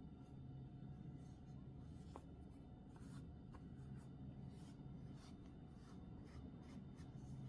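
Faint rustling and soft scratchy ticks of fingers handling and pressing yarn hair onto a crocheted doll's head, over a low steady hum.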